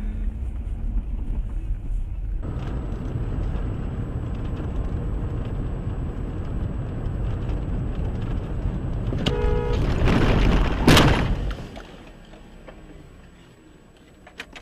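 Car interior road and engine noise from a dash cam, with a short car-horn honk about nine seconds in, followed by a loud, brief noise burst about eleven seconds in. After it the sound drops much quieter.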